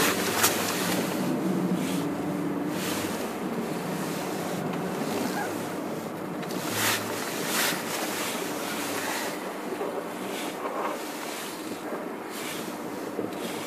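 Wind buffeting the camera microphone: a steady rushing noise with brief gusts, over a low drone that is strongest in the first few seconds.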